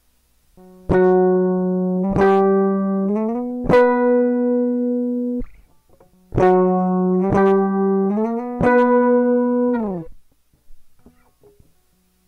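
A single guitar plays a slow lead phrase twice, with a short pause between. Each time a few notes are picked and held, then slid up to a higher held note. The second time the last note sags down in pitch as it fades out.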